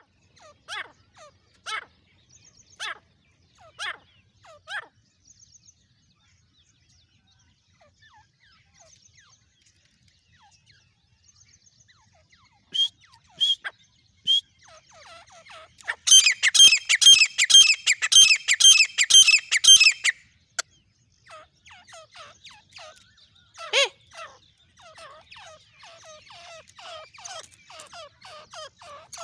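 Female grey francolin (teetar) calling. A few sharp falling calls come about once a second, then a quieter stretch, then a loud, rapid, unbroken run of calls for about four seconds past the middle, followed by softer fast chattering.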